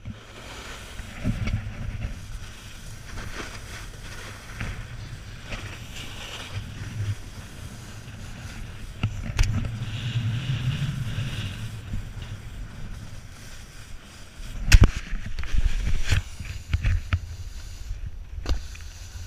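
Wind buffeting the microphone of a pole-mounted action camera while a snowboard slides and scrapes over packed snow on a downhill run. Two sharp knocks come a little over a second apart late on.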